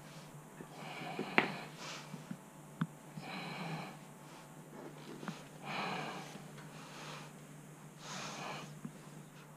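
A person's heavy breathing close to the microphone, one breath about every two to three seconds, with a few sharp clicks; the loudest click comes about one and a half seconds in.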